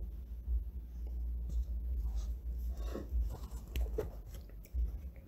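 Faint scratching and rustling with scattered light clicks, over repeated low thuds.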